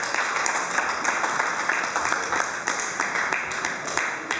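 Audience applauding, many hands clapping steadily, easing off near the end.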